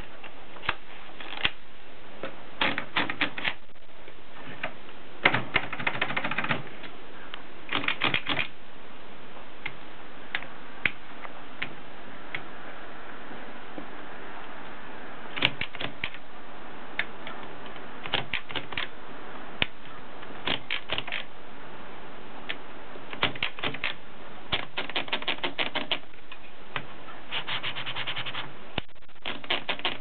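Gossen Tippa portable manual typewriter mechanism clicking: short runs of quick sharp clicks with pauses of a second or more between them.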